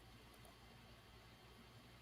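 Near silence: faint microphone hiss and a low steady hum.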